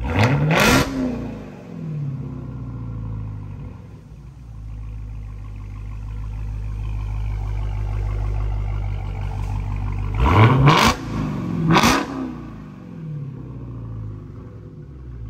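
Supercharged 6.2-litre HEMI V8 of a 2022 Dodge Challenger Hellcat Widebody with the mufflers deleted, extremely loud. It idles with a low rumble and is blipped twice in quick succession right at the start and twice more about ten seconds in, each rev rising sharply and dropping straight back to idle.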